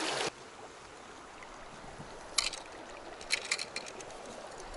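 Small shallow river flowing over stones, a steady rush of water that drops abruptly to a softer flow a moment in. A few sharp clicks sound over it, once about halfway through and in a quick cluster a second later.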